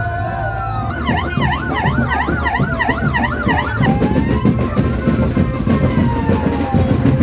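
Police van's electronic siren: a slow wail, switching about a second in to a fast yelp, about three cycles a second, then back to a slow rising and falling wail near the four-second mark.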